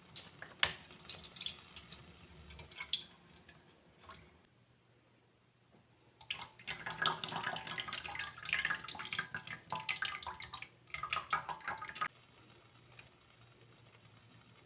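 Liquid dripping and bubbling, with scattered drips and clicks at first, then a denser spell of crackling bubbling that cuts off suddenly about twelve seconds in, leaving a faint steady low hum. A short gap of near silence comes about four and a half seconds in.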